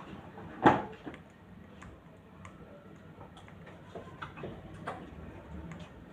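A single sharp knock under a second in, then scattered light ticks and taps.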